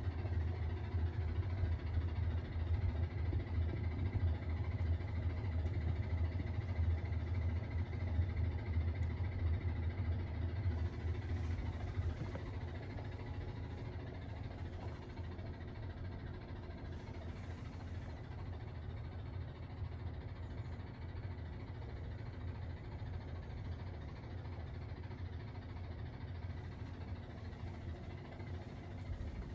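Washing machine running with a loud, steady low hum, which drops somewhat about twelve seconds in.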